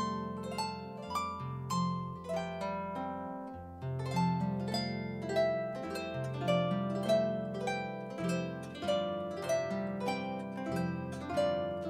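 Concert harp playing a gentle melody: quick plucked notes ring and fade over deeper bass notes, each bass note sustained for a second or so.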